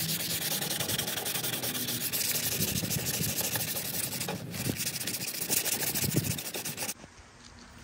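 A 150-grit sanding sponge rubbed briskly by hand over a painted steel file-cabinet drawer, scuffing the paint before priming: a steady, scratchy hiss. It breaks briefly about four seconds in and stops suddenly near the end.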